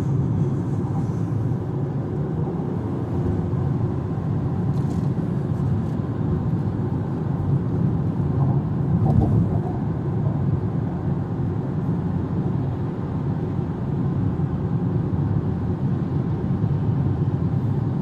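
Steady road and tyre noise with a low engine hum from a Haval Jolion crossover driving along, heard from inside the cabin.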